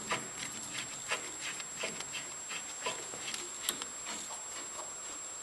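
Light, irregular clicks and scrapes of metal parts being handled as an aluminium handwheel is fitted onto the bandsaw with its washer and cap screw. The sounds thin out about four seconds in.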